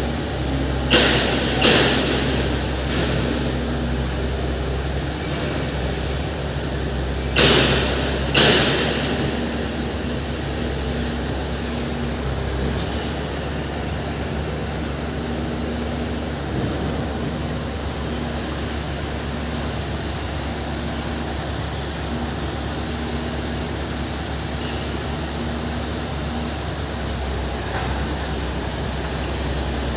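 Heavy machinery running steadily with a low drone. Four short, loud bursts of noise break in: two about a second in and two around eight seconds in.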